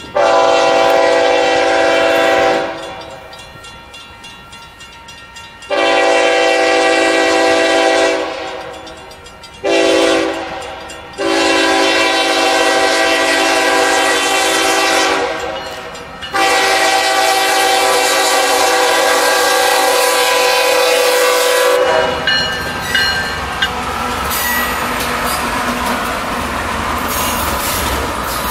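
Diesel freight locomotive's chord air horn sounding the grade-crossing signal: two long blasts, a short one, then a final long blast held for about ten seconds with a brief dip. After the horn stops, the locomotive rumbles past close by with its wheels clattering over the rails.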